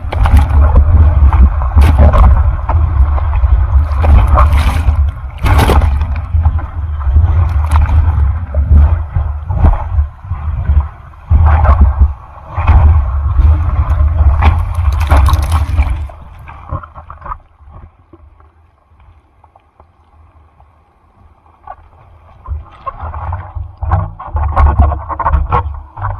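Rough typhoon surf: water rushing and splashing around the camera, with a heavy rumble of wind and water buffeting the microphone. About two-thirds of the way through it drops away to a quiet lull, then the rushing builds again near the end.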